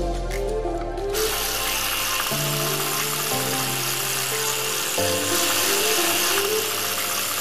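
Potato bites deep-frying in hot oil in an iron kadai: a steady sizzle begins about a second in. Background music with a simple melody plays throughout.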